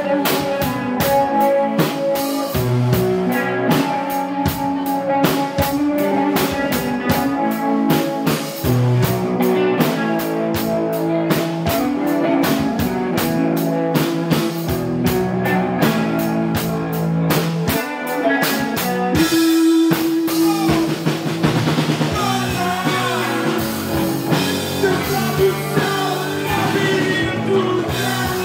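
Live rock band playing: a drum kit with busy cymbal and snare hits drives an electric guitar part. About two-thirds of the way through, the drumming drops back and a wavering melodic line carries on over a sparser beat.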